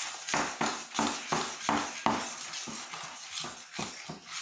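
Large spoon stirring and scraping sticky bread dough around a glass bowl, in short, quick strokes about three a second.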